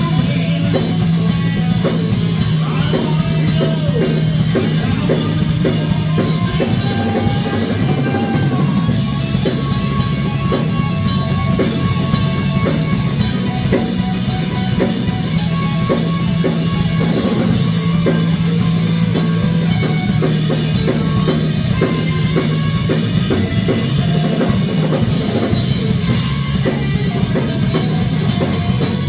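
Rock music played by a band, with a full drum kit driving a steady beat, bass drum and guitar over sustained low bass notes.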